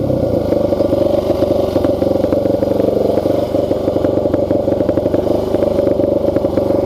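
An engine idling steadily, with a fast, even pulsing beat.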